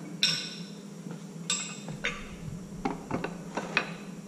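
Steel workpiece and tooling being handled at a milling-machine vise: a run of separate metallic clinks and knocks, a couple of them ringing, over a steady low hum.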